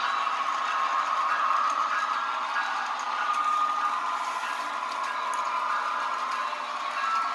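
Model train running along its track, a steady whir with a few faint clicks.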